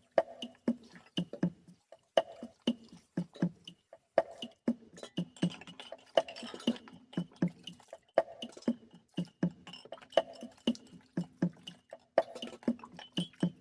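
Instrumental break in a song's backing track: a steady beat of about two hits a second over a held low note.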